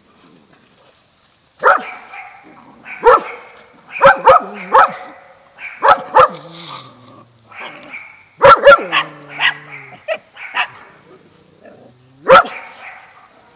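A dog barking at a fence, about a dozen sharp barks at uneven intervals. A few near the middle trail off into falling yelps.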